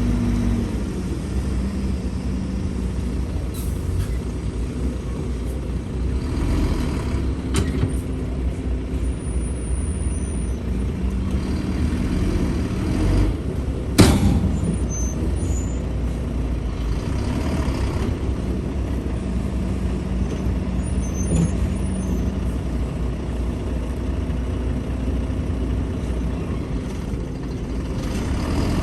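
Heavy diesel earthmoving machinery running with a steady low drone, with a single sharp bang about fourteen seconds in and a few lighter knocks.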